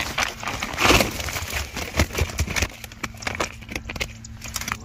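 A bag of freshly caught tilapia being handled: rustling with a run of irregular slaps and knocks as the fish shift against the bag, loudest about a second in.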